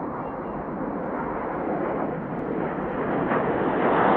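Formation of BAE Systems Hawk T1 jets flying past, the steady roar of their Adour turbofan engines. The roar grows louder from about three seconds in.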